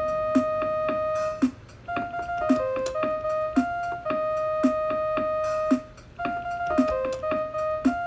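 A melody played one note at a time on a Casio mini keyboard, with long held notes over a steady drum beat.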